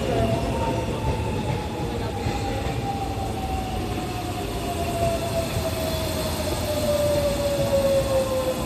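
Sotetsu electric commuter train running along the platform over rail rumble. Its motor whine falls steadily in pitch as the train slows.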